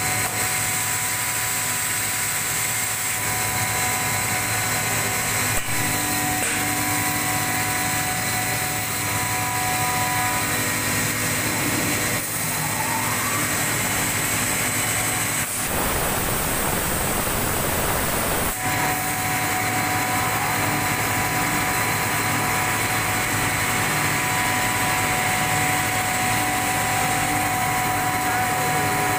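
CKE 18-inch, 185 W exhaust fan running steadily: an electric motor hum with a constant whine and airflow noise. About halfway through, a broad rush of noise lasts about three seconds.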